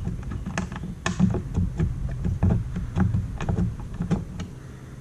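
Hand screwdriver turning a Torx screw to start it into its hole: scattered light clicks and knocks about every half second over low handling rumble.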